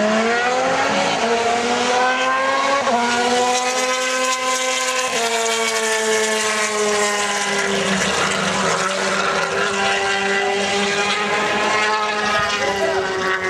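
Ducati Desmosedici two-seat racing motorcycle's V4 engine at full throttle, pitch climbing and dropping at upshifts about one, three and five seconds in, then holding a steadier note as the bike runs on down the track.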